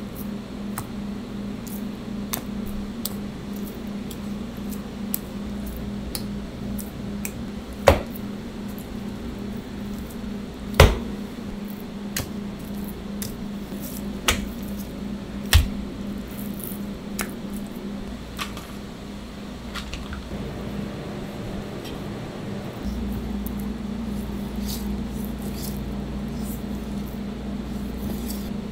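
Kitchen knife slicing raw pork loin on a cutting board: scattered light clicks of the blade with a few sharp knocks against the board, over a steady hum.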